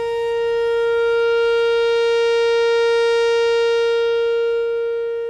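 Outdoor tornado warning siren sounding during a test: a loud, steady single-pitched tone that swells slightly and then fades away near the end.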